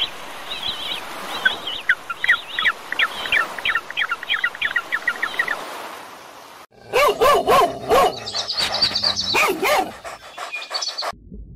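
A bird singing a rapid run of high chirping notes, then, after a sudden cut, a dog barking repeatedly for about four seconds.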